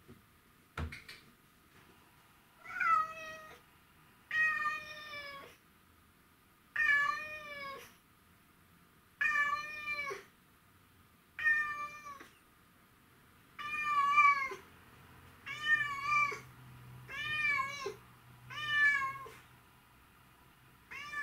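A white-and-ginger domestic shorthair tomcat meowing over and over, about nine long meows roughly two seconds apart, each bending down in pitch at its end; the owner takes the calling for the cat missing him. A single knock sounds about a second in.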